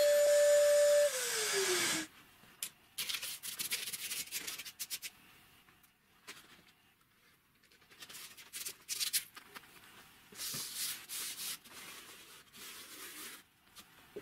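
Angle grinder with a shrouded cup wheel running with a steady whine, switched off about a second in, its pitch falling as it spins down. Then irregular short rubbing and scraping sounds against the freshly chamfered plasterboard edge.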